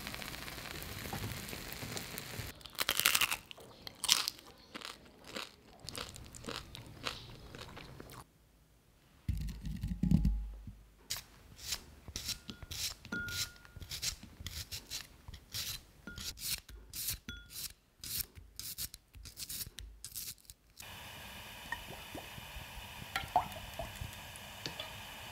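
Close-miked food-preparation sounds: many crisp clicks and crunches as a small serrated knife peels and cuts into a shallot, with a low thump about ten seconds in, then a steady hiss with faint ticks near the end.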